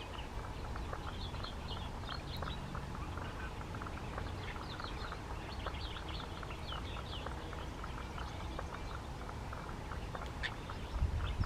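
Wetland birds calling: a busy scatter of short chirps and calls over a steady low rumble. A louder low rumble comes in near the end.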